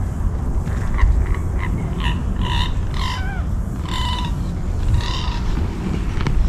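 An animal in the marsh giving a series of about eight short pitched calls, one sliding down in pitch about three seconds in, over a steady low rumble of wind on the microphone.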